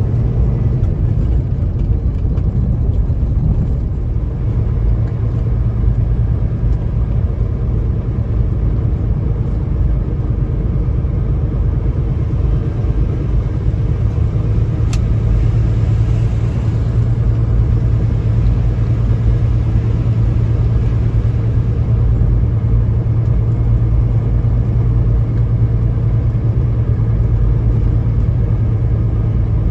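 Semi truck's diesel engine and road noise heard from inside the cab: a steady low drone while driving on the icy highway.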